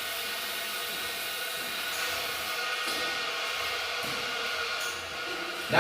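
Water spraying steadily from a newly installed shower head, a continuous hiss.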